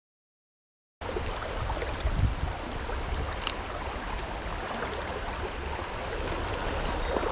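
Small mountain stream flowing: a steady rush of water that cuts in abruptly about a second in, with a few faint clicks over it.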